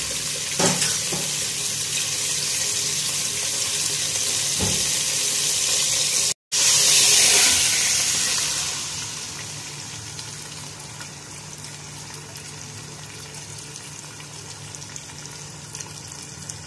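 Cumin seeds and salt sizzling in hot oil in a pot, with a couple of knocks. About six seconds in, a louder burst of sizzling as uncooked rice goes into the hot oil, settling after a couple of seconds to a quieter steady hiss.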